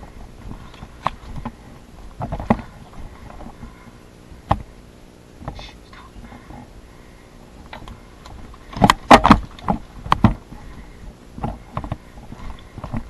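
Footsteps of a person moving through woodland undergrowth: scattered crunches and knocks, with a loud run of several sharp hits about nine seconds in.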